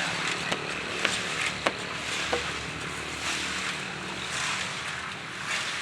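Concrete mixer machine running steadily, a low engine hum under the noise of the turning drum, with four sharp knocks in the first two and a half seconds.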